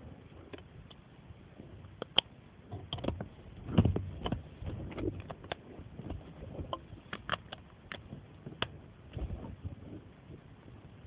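Plastic Lego pieces clicking and clattering as they are handled and pressed together: irregular sharp clicks, densest in the middle, with dull bumps of handling around four seconds in and again near nine seconds.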